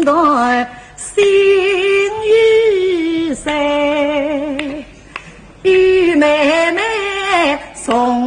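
A woman singing long, wavering held notes in Suzhou tanci (pingtan ballad) style, with two brief pauses between phrases.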